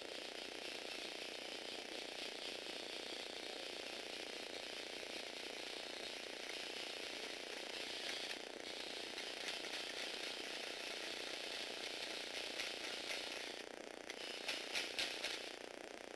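Small electric gear motor whirring, with the plastic Lego Technic tread links of a tracked vehicle clattering as it drives. The running breaks off briefly twice, and a few sharp clacks come near the end just before it stops.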